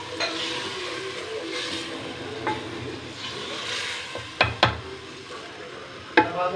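Wooden spoon stirring thick lentil daal in a large aluminium pot, with two sharp knocks a little past halfway and another near the end as the spoon strikes the pot.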